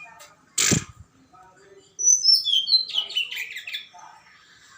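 A songbird singing a quick run of chirping notes that step downward in pitch, about two seconds in. A brief harsh noisy burst comes before it, under a second in.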